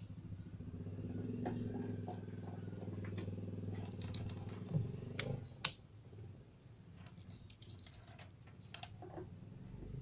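A low, steady motor drone for about the first five seconds, then several sharp clicks and light tapping from multimeter test leads and probes being handled.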